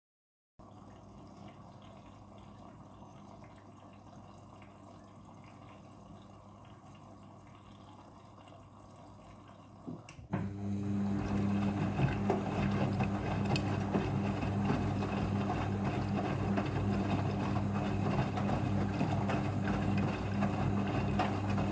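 Front-loading washing machine filling for a rinse: a quiet steady hum, then about ten seconds in a click and water rushes into the drum, loud and steady with a low buzzing hum under it.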